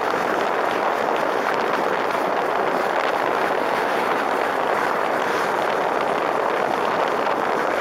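Steady rush of wind and road noise from a car at highway speed, picked up by a microphone above the car's roof with wind blowing across it.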